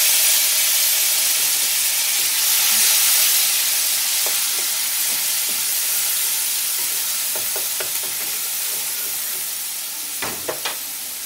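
Wet onion paste sizzling hard in very hot mustard oil in a kadai as it is stirred with a wooden spatula. It is a loud, even hiss that slowly dies down as the first burst of steam passes.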